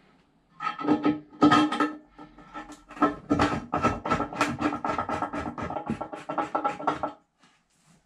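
A long screwdriver turning the bolts inside a close-coupled toilet cistern, its metal shaft scraping and knocking against the ceramic. The rapid scraping and clicking carries a steady ringing tone, starts about half a second in and stops about a second before the end.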